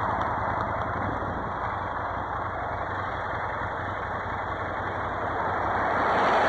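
Ducati Scrambler's L-twin engine running at low speed, mixed with wind and road noise on the camera microphone. It gets a little louder near the end.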